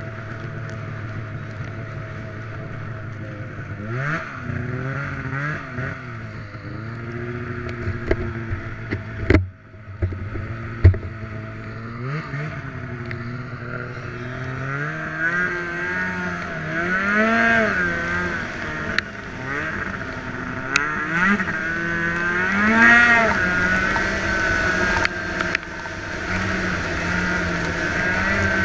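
Snowmobile engine running under way, its pitch rising and falling again and again as the throttle is worked. Two sharp knocks come about nine and eleven seconds in.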